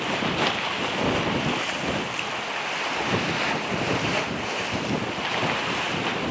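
Strong wind buffeting the camera microphone in uneven gusts, over the wash of a rough, choppy sea.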